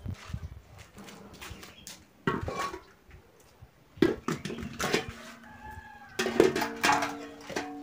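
Metal cooking pots and bowls knocking together as they are put down on the ground, three knocks, the later two leaving the metal ringing for a second or more.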